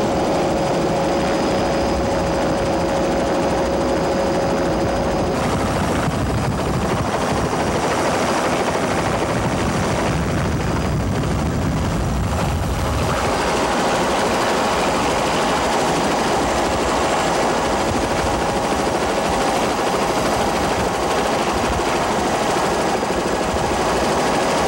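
Helicopter running steadily: a loud, continuous mix of rotor chop and engine noise heard from the cabin, with a change in its sound about five seconds in and again near the middle.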